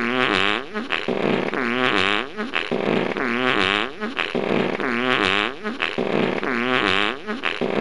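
A recorded fart played in a loop: the same long, pitch-bending, brassy fart repeats about every second and a half, with short gaps between the repeats. Its tone is likened to a jazzy trombone.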